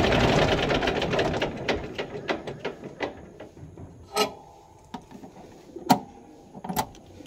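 John Deere tractor's diesel engine shutting down after its fuel-stop knob is pulled: the running slows and fades over about three seconds, the firing strokes spreading out until it stops. Then three sharp clicks, the loudest about six seconds in.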